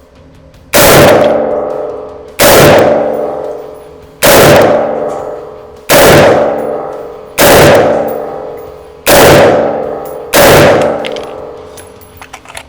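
Seven rifle shots fired at a slow steady pace about one and a half seconds apart from a newly built semi-automatic rifle, each with a long ringing decay. The rifle cycles each round without a hitch during its live-fire function test.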